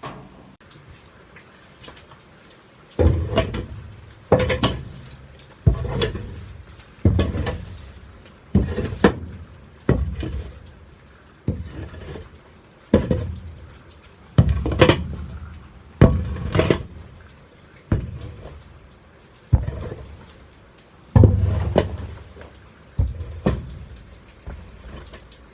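Repeated strokes of a shovel scraping and scooping wet, dirty bedding off a cattle trailer floor, about one every one and a half seconds, each a sharp scrape that quickly fades.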